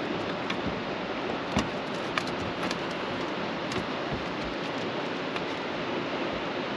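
Steady rushing noise of water and wind, with a few light clicks and a knock about one and a half seconds in.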